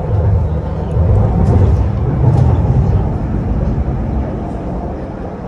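MTR Tuen Ma line C-Train running, a loud, steady low rumble that eases off slightly toward the end.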